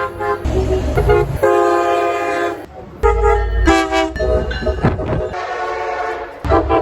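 Train horns, each a chord of several held tones, sounding in a rapid series of short blasts that change abruptly from one horn to the next. A deep rumble of the trains runs under some of the blasts.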